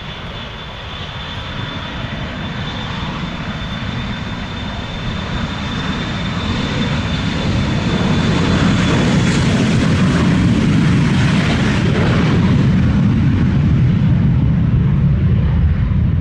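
Jet aircraft engines growing steadily louder over the first half, then staying loud, as the aircraft moves on the runway or passes close by. A thin high steady whine sounds in the first few seconds.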